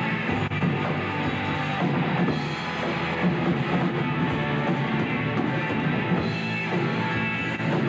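Live rock band playing a song on stage, a full band sound with drums and guitar running steadily.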